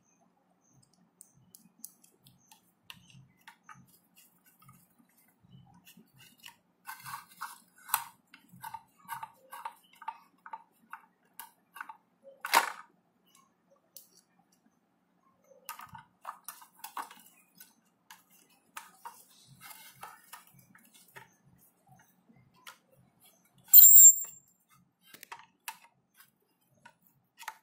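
Small screws being driven with a screwdriver into a dry electric iron's metal and plastic parts: a series of light ticks and clicks, with a sharper click about twelve seconds in and a short, louder metallic clink near the end.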